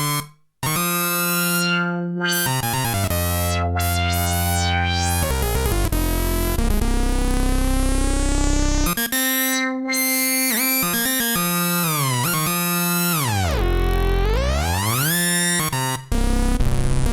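Roland JD-990 synthesizer playing an oscillator-sync patch: bright, buzzy notes and chords whose overtones sweep up and down. About three-quarters of the way through, the pitch dips down and glides back up, and the sound stops abruptly at the end.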